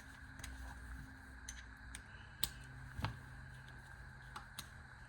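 Scattered light clicks and taps, about seven in all with the sharpest about two and a half and three seconds in, over a steady faint hum.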